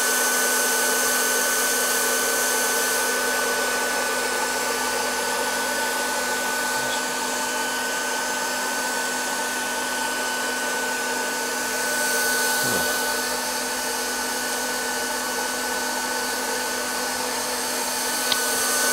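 Techspan Rion hot air plastic-welding tool running steadily, its blower giving an even rushing noise with a steady high whine. It is heating its mirror plate for butt welding.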